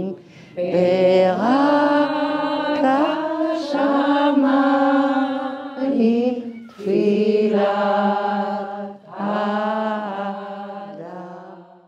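A group of women singing a slow, chant-like song together in long held notes, in three phrases, fading out near the end.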